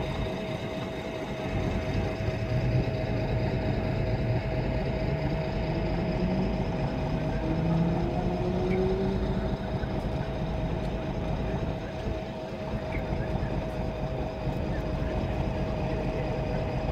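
Street traffic: vehicle engines running with a constant whine. One engine climbs slowly in pitch, as a vehicle pulling away, between about two and nine seconds in.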